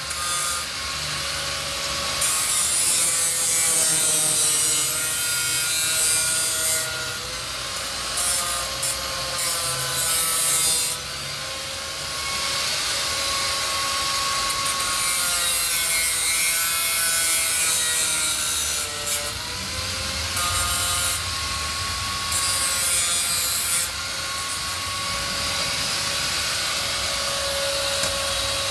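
Electric angle grinder grinding down bolt heads to round them off: a steady grinding hiss over the motor's whine, which wavers in pitch, with a few short dips in level.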